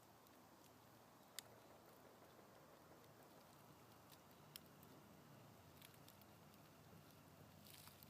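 Near silence: faint steady hiss with a few scattered soft clicks, a small cluster of them near the end.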